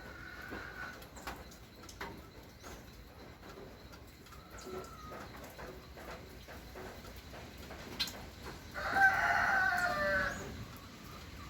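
A rooster crowing: one long call about nine seconds in, with fainter short bird calls before it.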